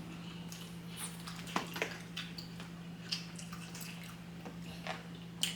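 Soft, scattered wet clicks and smacks of people eating, over a steady low hum.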